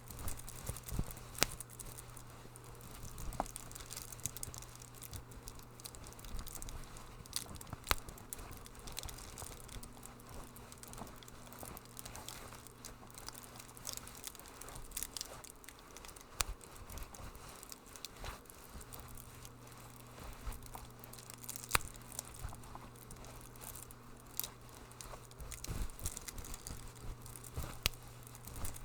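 Wood fire crackling in a fireplace: irregular sharp pops and snaps over a soft steady hiss, with a faint low hum underneath.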